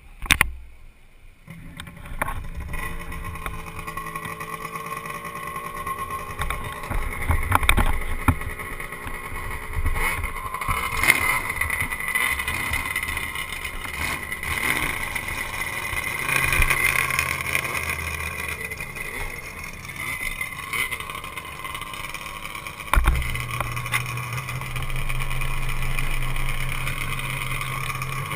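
A few sharp knocks at the start, then a snowmobile engine running steadily at low speed as the sled moves slowly over grass. About 23 seconds in the engine steps up to a slightly higher, louder note.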